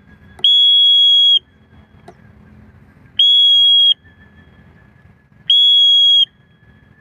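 A whistle blown in three long blasts of one steady high pitch, the first about a second long and the next two a little shorter, spaced about two and a half seconds apart. It is used to call a flying pigeon down.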